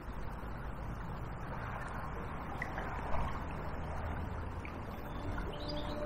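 Steady rushing of a small river's current flowing past the bank, with a few faint bird chirps.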